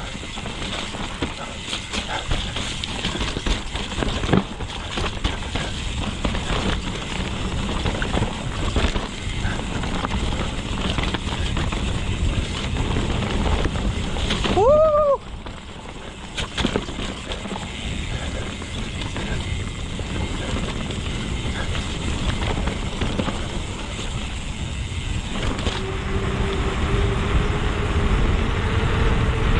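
Mountain bike riding a forest trail: steady wind and tyre noise with rattles and knocks from the bike, a short rising-and-falling squeal about halfway through, and a steady hum coming in near the end.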